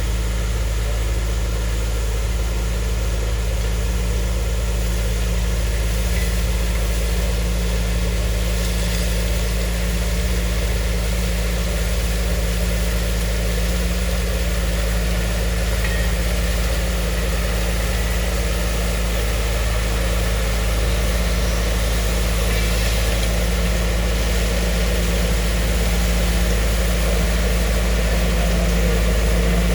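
Engine of a railroad track-maintenance machine running steadily, a constant low rumble with a steady hum.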